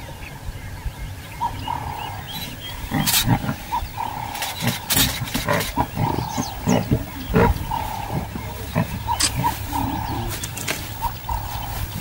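Lion cubs growling in short rough bursts as they play-fight, the growls bunched through the middle of the stretch.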